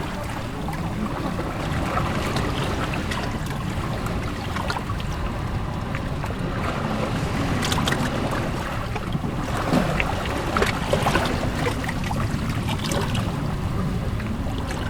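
Ocean waves breaking and sloshing between shoreline rocks, a continuous wash of water with scattered splashes, swelling a little about ten to eleven seconds in, over a low wind rumble.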